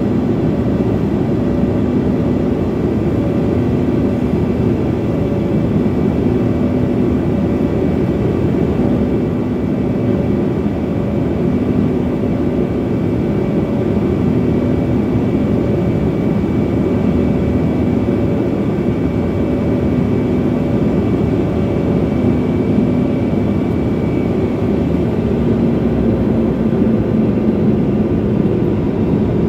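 Steady engine and rushing-air drone of a small passenger plane in flight, heard inside the cabin, with a few faint held tones over it.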